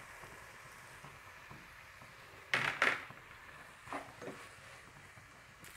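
Spatula scraping against a non-stick kadai while boiled rice is stirred into it. Two strong strokes come about two and a half seconds in, then two lighter ones about a second later.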